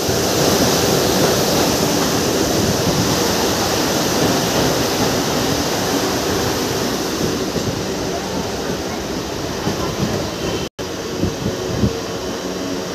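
Mumbai suburban electric train running on the rails, a steady rumble and rattle of the wheels and carriage heard from inside the coach by the open window. The sound cuts out for an instant about eleven seconds in, followed by a few light knocks.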